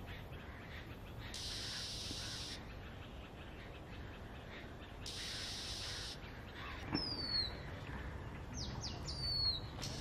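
A small gray songbird, presented as an Asian gray robin, singing short, clear whistles that slide downward, one phrase about seven seconds in and a quicker run of notes near the end. Bouts of a high, even hiss come and go, each about a second long.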